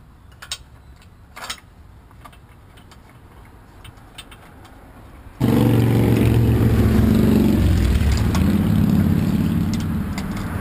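A few sharp metallic clinks from the adjustable wrench on the hitch bolt as the bike carrier's swing arm is fastened into the receiver. About five seconds in, a loud engine starts running abruptly, its pitch wavering.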